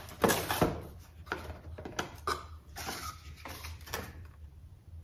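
Small cardboard perfume boxes and their packaging being handled and opened: a string of irregular rustles, taps and light knocks.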